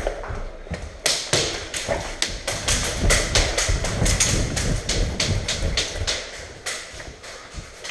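Hurried footsteps on a hard floor, with knocks and rattles from the player's gear and rifle: a quick run of irregular sharp knocks and thuds.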